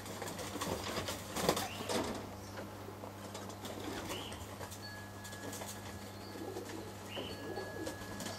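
Roller pigeons' wings flapping, several quick bursts in the first two seconds and quieter flutters after, over a steady low hum.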